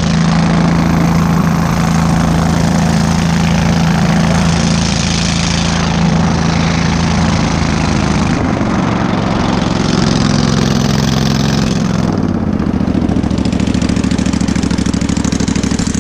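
23 hp Kohler engine of a Go-Devil long-tail mud motor running steadily under way, pushing the boat along at speed. Its engine note shifts slightly about halfway through and again a few seconds later.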